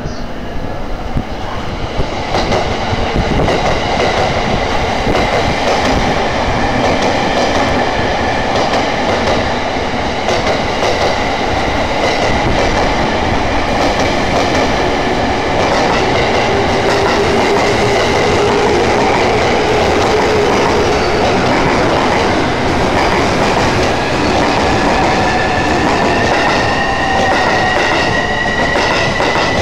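JR E231 series electric train running close alongside the platform: a steady rumble with wheel clatter over the rail joints. A high tone rises in pitch over the last few seconds.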